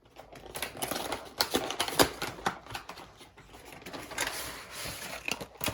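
A cardboard Pokémon TCG collection box being opened and its packaging handled: irregular crinkling, rustling and clicks, with a sharp snap about two seconds in.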